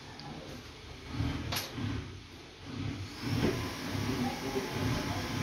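Two sharp clicks of plastic bottle-cap draughts pieces on a board, about one and a half and three and a half seconds in, over a low background rumble.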